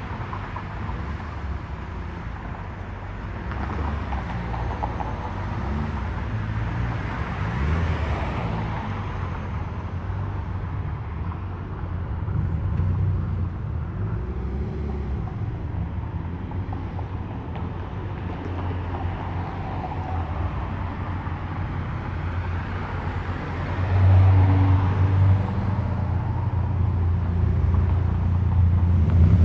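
Cars driving by at low speed one after another, engines running with a steady low rumble that swells as each one passes, the loudest about 24 seconds in.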